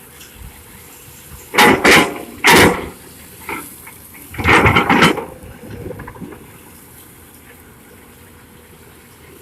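Three loud bursts of rushing noise, each under a second long, over a faint steady background.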